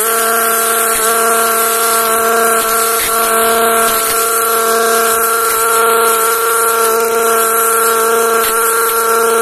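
Petrol brush cutter engine running at steady high revs as the cutting head works through tall weeds, an even high-pitched drone.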